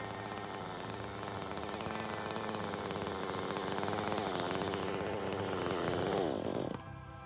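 Jonsered CS2255 two-stroke chainsaw running at high revs while cutting into a large birch trunk, its pitch wavering with the load. Near the end the revs fall away quickly and the sound drops off.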